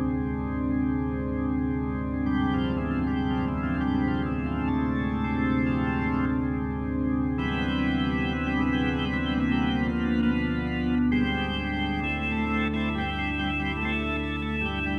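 Background music: slow, sustained chords on a keyboard, changing every few seconds.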